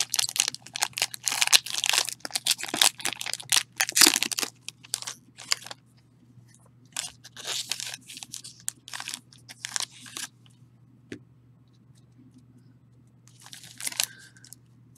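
Foil trading-card pack being torn open and crinkled: dense crackling for the first four seconds or so, then scattered short crinkles, a pause, and a last crinkle of the foil near the end as the cards are pulled out.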